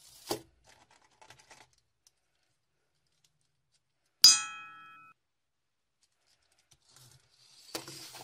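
Toy cars knocking together: one sharp clink about four seconds in that rings for under a second, after a few faint clicks. Near the end the cars clatter softly as a hand rummages among them in a plastic bowl.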